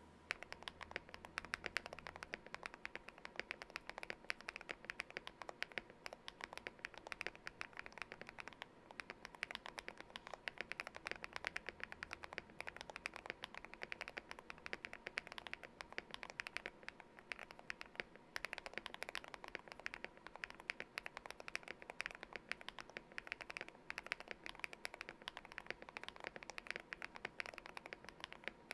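Custom GMK67 mechanical keyboard with lubed KTT Hyacinth switches, tape mod and foam, and PBT Cherry-profile keycaps being typed on steadily: a fast, continuous stream of keystroke clacks, with brief pauses about nine and eighteen seconds in.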